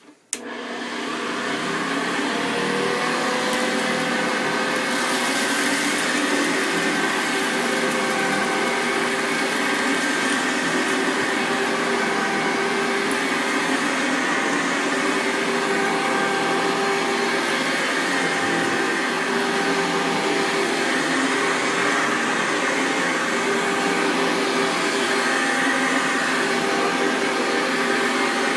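1972 Hoover Convertible upright vacuum (model U4047) switched on with a click, its motor spinning up over about two seconds and then running steadily, with its brush roll turning on newly replaced bearings, as it vacuums up oats.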